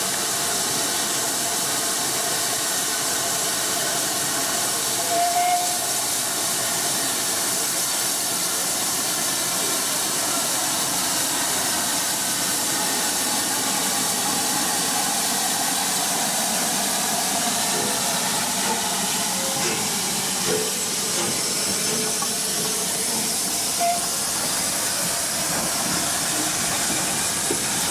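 Steam hissing steadily from standing rebuilt Bulleid West Country class Pacific No. 34027 'Taw Valley'.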